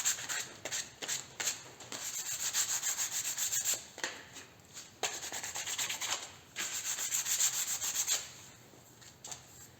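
Hand sanding: quick, even back-and-forth strokes of abrasive paper rubbing a surface, in several runs with short pauses, easing off near the end.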